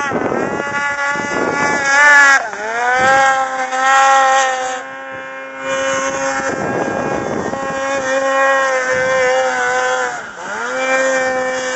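Polaris RMK snowmobile's two-stroke engine running at high revs on a hill climb. The revs drop and climb back up twice, about two and a half seconds in and again near the end.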